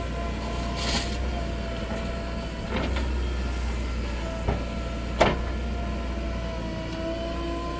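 Diesel engine of a JCB 3DX backhoe loader running steadily with a whine, and a few sharp knocks, the loudest about five seconds in.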